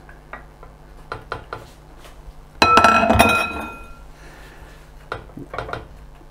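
Light taps and scrapes of a wooden spatula spreading carrots in a heavy cooking pot, and about two and a half seconds in a glass pot lid set down on the counter with a loud clattering clink that rings on briefly.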